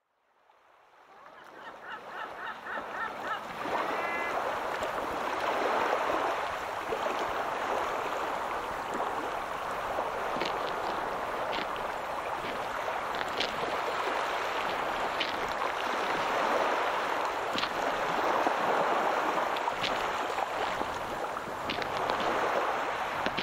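Rushing ambient noise fading in from silence and then swelling and easing slowly, with a quick run of ticks a few seconds in and faint scattered clicks.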